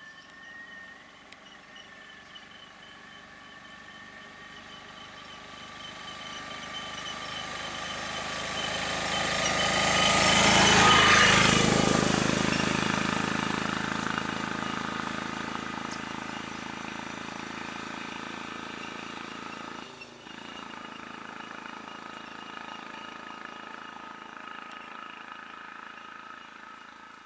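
A road vehicle driving past close by: its engine and tyre noise grow steadily louder to a peak about eleven seconds in, then fade slowly as it moves away.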